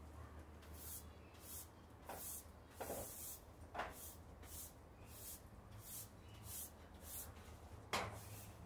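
Garden hose nozzle spraying water in a run of short hissing bursts, about one or two a second, with a few sharper knocks; the loudest comes near the end.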